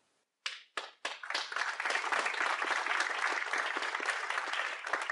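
Audience applauding: a few scattered claps about half a second in, building within a second into steady applause.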